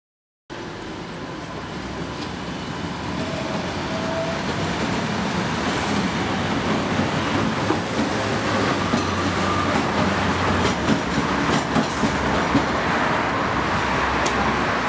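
City street ambience: a steady traffic rumble fades in and builds, with sharp footsteps on the pavement in the later seconds.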